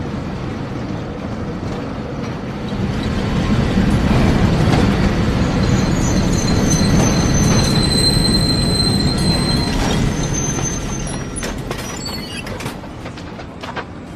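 A train passing, a steady rumble that swells a few seconds in and fades over the last few seconds. A high wheel squeal rings through the loudest part.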